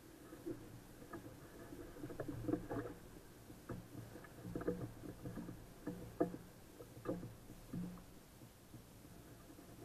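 Small boat on open water: irregular muffled knocks and bumps against the hull, one or two a second, as an angler shifts about on deck while playing a fish on a bent rod.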